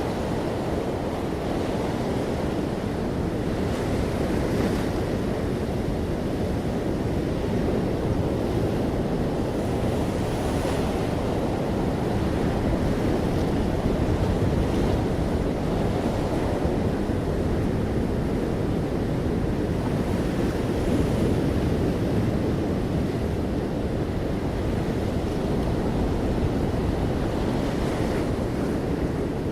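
Ocean waves washing gently onto a shore, a steady rumbling wash of surf that swells slightly now and then.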